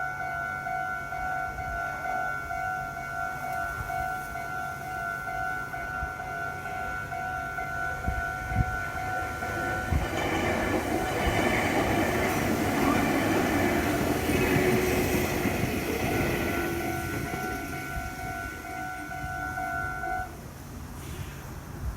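A Japanese level-crossing warning bell rings with a steady, repeating electronic tone while a Meitetsu Toyokawa Line train passes. The train's running noise swells from about halfway in, is loudest a few seconds later and then fades. The bell stops shortly before the end.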